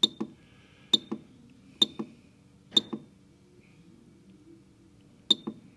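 Membrane keypad buttons on a Kolver EDU 2AE/TOP/TA screwdriver controller pressed five times while scrolling its menu, four presses about a second apart and one more near the end. Each press gives a sharp click with a short high beep, then a softer click a moment later.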